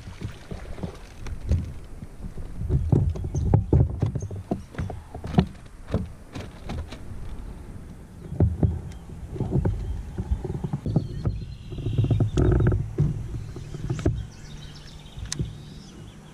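Irregular knocks, bumps and rustling handling noise from an angler working a fishing rod in a plastic kayak, over a low rumble of wind on the microphone.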